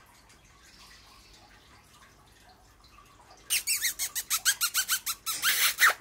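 Blue Indian ring-necked parakeet giving a rapid run of about a dozen harsh squawks, then one longer screech near the end.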